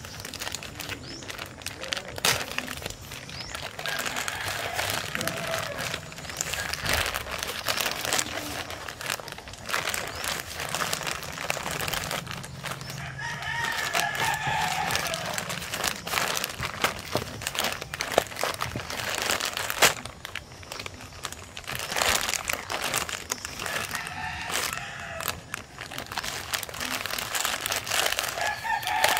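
Plastic courier mailer crinkling and crackling as hands squeeze, pull and tear it open. A rooster crows in the background a few times, around the middle and again near the end.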